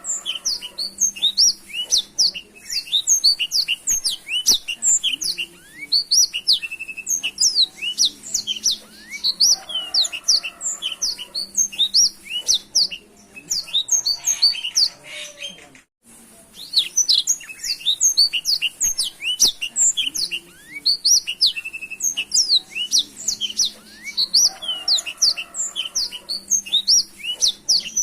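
Black-throated canary (blackthroat) singing a fast, continuous twittering song of high chirps and short whistles, with a brief break about 16 seconds in.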